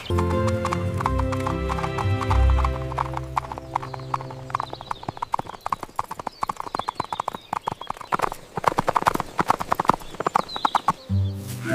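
Background music for the first few seconds, then a fast, even clip-clop of horse hooves; the music comes back near the end.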